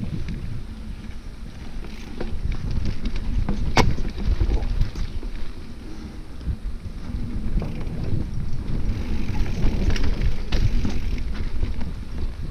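Mountain bike descending a dirt singletrack: tyres rumbling over the ground under heavy wind buffeting on the microphone, with scattered clicks and rattles from the bike and one sharp knock about four seconds in.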